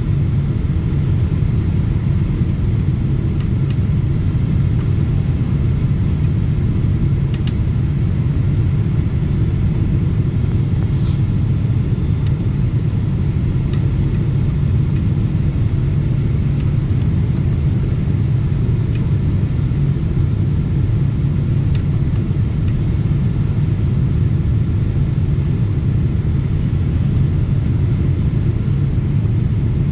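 Airliner cabin noise: a steady low rumble of the jet engines and rushing air, heard from inside the cabin as the aircraft descends on approach to land.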